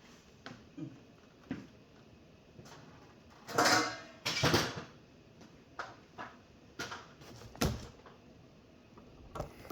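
Scattered knocks and clunks of boards and other objects being handled and set in place, with two louder, longer clatters about three and a half and four and a half seconds in.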